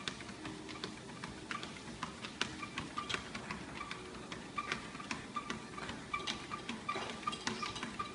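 Dog's claws clicking on a moving treadmill belt as it walks, a quick, uneven ticking of several clicks a second.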